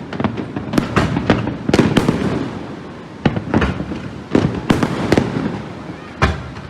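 Aerial fireworks going off in a rapid, irregular string of bangs with rumbling echo between them, a few of them loud and close.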